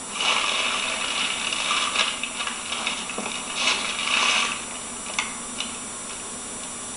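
Close rustling and scraping against the microphone, from the camera being handled against clothing, with a few light clicks. It rises about a quarter-second in and fades after four or five seconds, leaving a steady hiss.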